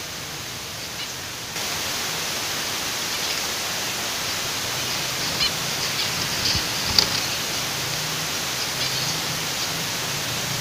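Steady hiss with a few short, high chirps from zebra finches in the middle stretch, and a sharp click about seven seconds in.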